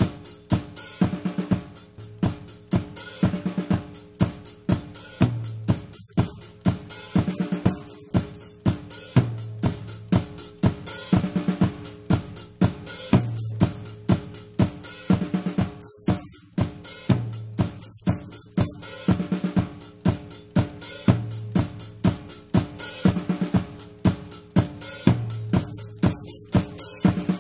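Recorded music led by a drum kit: kick, snare and hi-hat playing a steady beat, with sustained low bass notes underneath.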